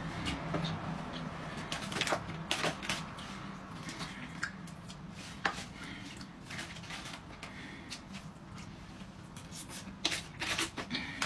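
Metal fork clicking and scraping in an aluminium foil takeaway tray, with irregular crinkly taps coming in clusters. A low steady hum runs underneath.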